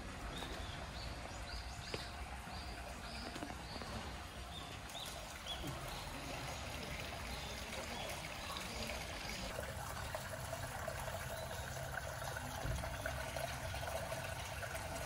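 Spring-fed stream water trickling and pouring steadily into a small koi pond, with a small bird chirping repeatedly in the first half.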